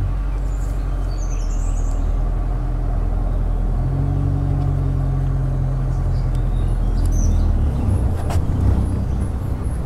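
Safari jeep's engine running steadily, its note shifting about four seconds in and again near the end. A few faint bird chirps sound above it, and there is a single click near the end.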